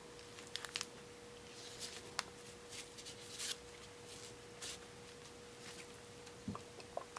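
Faint handling noises of a plastic fashion doll and its clothes being turned in the hands: a few small scattered clicks and brief rustles. A faint steady hum runs underneath.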